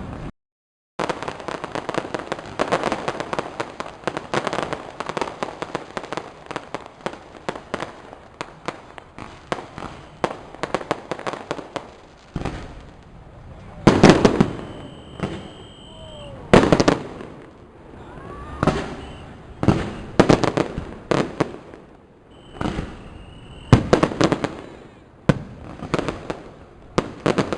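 Fireworks going off. A dense run of rapid crackling bangs starts about a second in and lasts some ten seconds, then gives way to single loud booms every second or two, with a couple of brief high whistles among them.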